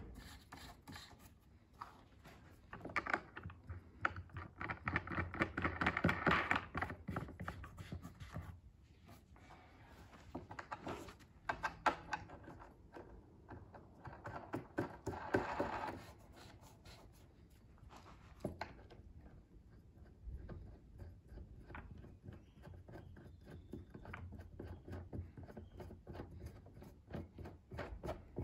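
Sofa-bed legs being twisted by hand onto their screws in the base: several bursts of rapid clicking and scraping, with the odd knock as the frame is handled, and quieter spells between.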